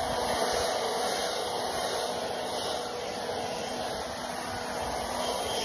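Leaf blower running steadily, blowing excess joint sand off freshly sanded pavers.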